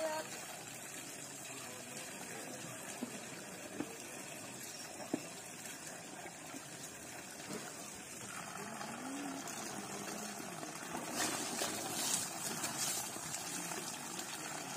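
Water running and splashing over an elephant being bathed, with a few light knocks; the splashing grows louder a few seconds before the end.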